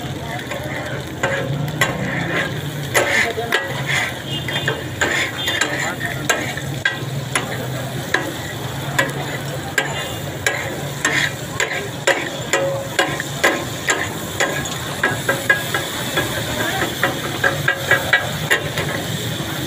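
Two flat metal spatulas chopping and scraping on a large hot griddle (tawa), clacking rapidly and unevenly against the metal while oil and minced meat sizzle: the clatter of katakut being cooked.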